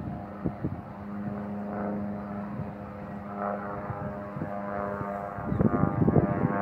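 Small propeller airplane flying over, a steady engine drone. Wind buffets the microphone at the start and again near the end, loudest there.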